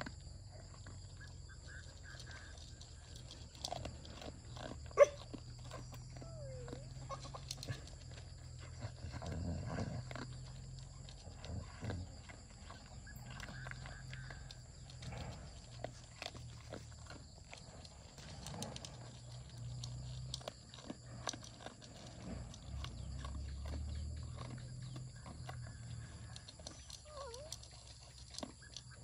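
A dog crunching and chewing dry kibble from a metal bowl, with many small crunches and clinks. A single sharp knock about five seconds in is the loudest sound.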